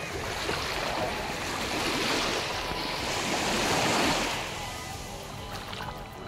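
Small sea waves washing onto a sandy shore: a steady rush of surf that swells, peaks about four seconds in, then eases.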